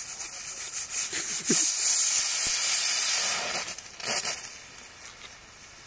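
Loud hiss from the cooking pan. It jumps up about a second and a half in and eases off after about two seconds.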